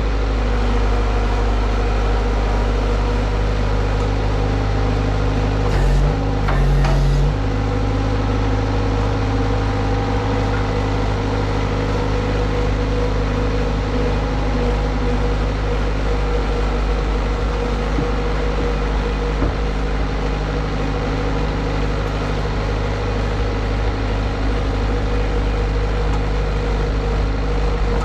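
Diesel engine of a skid steer running steadily while it powers a hydraulic firewood processor, with a brief change in engine note and a couple of clicks about six seconds in.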